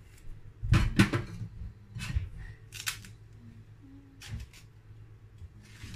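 Kitchen knife clicking and knocking against a ceramic plate and a stainless steel draining board while an overripe plantain is peeled by hand: a handful of sharp clicks, the loudest about a second in.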